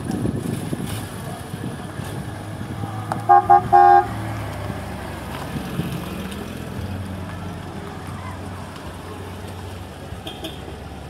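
A car horn toots three times about three seconds in, two short beeps then a slightly longer one, over the steady low running of vintage cars driving slowly past.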